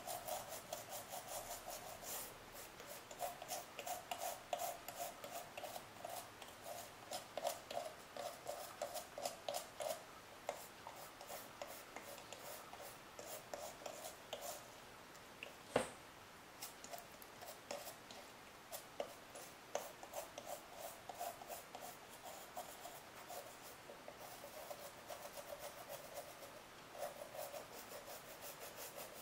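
Faint, quick scratching strokes of a small brush scrubbing corrosion off a water-damaged iPhone 4S logic board, with a single sharp click about halfway through.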